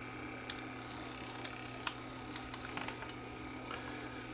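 Faint clicks of a portable cassette recorder's controls being handled, a few scattered taps over a steady low hum.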